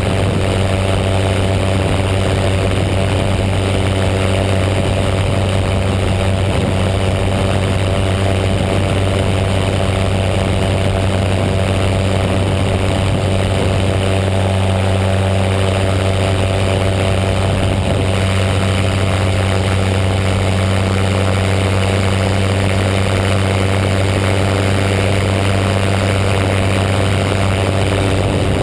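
Paramotor engine and propeller running steadily in flight, a constant low drone with overtones at unchanging pitch, mixed with the rush of wind over the microphone.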